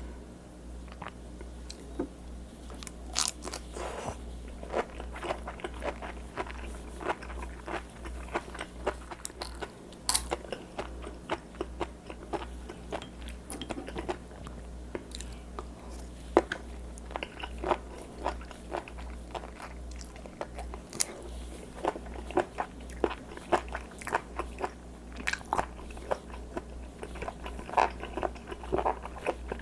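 Close-miked chewing of raw seafood: irregular crisp crunches, clicks and wet mouth sounds, over a steady low hum.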